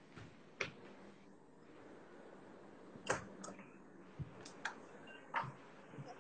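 Handling noise from a smartphone being picked up and carried: a few faint, scattered clicks and knocks over low room tone.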